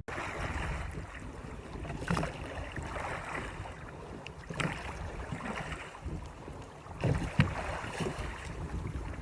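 Wind and water rushing around a small ocean rowing boat at sea, with a sharper splash about every two and a half seconds.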